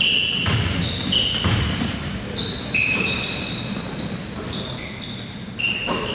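Basketball shoes squeaking on a hardwood court, many short high squeaks in quick succession, with a basketball bouncing a few times in the first two seconds, in a large echoing gym.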